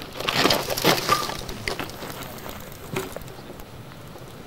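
Mountain bike dropping down a rocky step: tyres, frame and chain clattering and banging on the rock in a quick burst of knocks in the first second, then a couple of single knocks.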